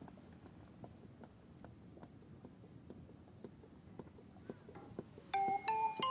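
Faint crackling clicks from a burning wooden stick and kindling catching inside a small metal box wood stove. About five seconds in, background music with bright chime-like notes comes in.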